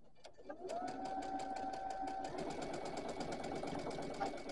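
Sewing machine starting up about half a second in and stitching steadily, a rapid even run of needle strokes over the whine of its motor, which shifts pitch about two seconds in.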